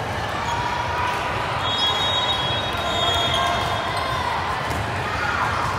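Busy gym noise at a volleyball match: balls thudding on the court and a crowd chattering, steady throughout.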